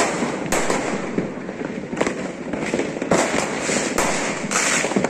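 Many aerial fireworks going off at once: a continuous crackle of bursting shells with sharp bangs standing out every second or so.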